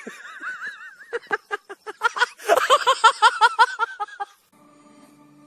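A person laughing hard in a high, wavering voice that breaks into a rapid run of ha-ha pulses, about five a second, stopping about four seconds in. Faint music starts after that.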